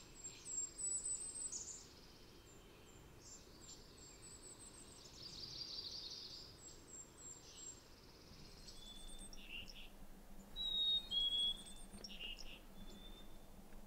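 Wild birds singing faintly: quick runs of very high, thin chirps near the start and again midway, then clearer, lower whistled phrases through the second half.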